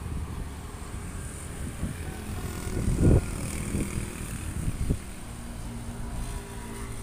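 Heavy-equipment diesel engine running with a steady drone, with wind buffeting the microphone and a loud bump about three seconds in.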